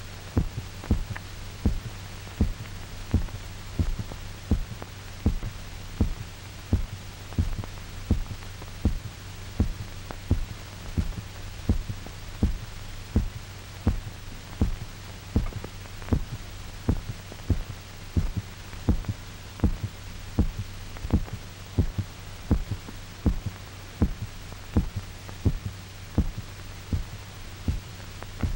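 A heartbeat played on the soundtrack: a steady lub-dub about once a second, over a constant low hum. It stands for the heart of a dog that is being bled out through its carotid artery.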